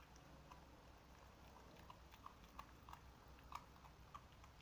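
Dog chewing, faint irregular crunches and bites, about a dozen in a few seconds, the loudest about three-quarters of the way through.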